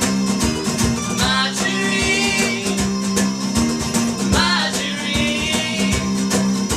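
Live acoustic band music: rhythmically strummed guitar over a steady low note, with long wavering high notes held above it.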